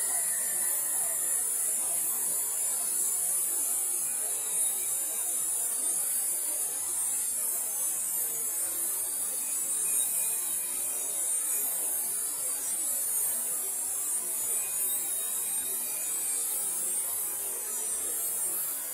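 A steady, high-pitched electronic hiss.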